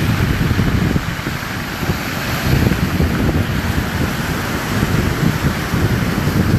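Surf of a rough, stormy sea breaking and washing, with wind buffeting the microphone in a steady low rumble.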